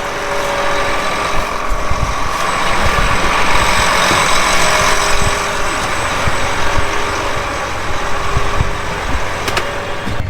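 Heavy farm machinery engine running steadily, with a rushing noise that swells in the middle and fades again.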